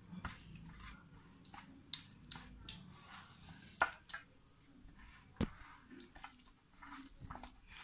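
Bare hand mixing a curd and spice marinade on a stainless steel plate: soft wet squishing, with scattered clicks of fingers against the metal, two of them louder about four and five and a half seconds in.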